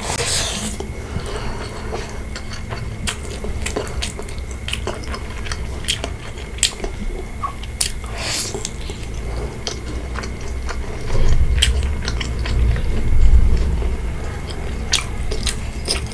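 Close-up chewing and biting of pork curry, bamboo shoot and rice, with many short wet mouth clicks. A louder low rumble swells about eleven seconds in and fades a few seconds later.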